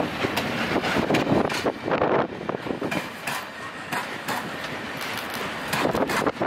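Freight train of open wagons rolling past behind an electric locomotive: a steady rumble of wheels on rail with many irregular sharp clicks and clacks as the wheels cross rail joints.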